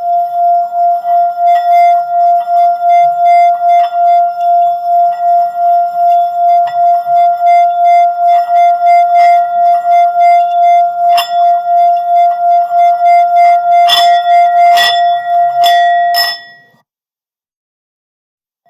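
Tibetan singing bowl holding one steady ringing tone that pulses about two or three times a second. A few sharp clinks sound near the end, and then the tone cuts off suddenly.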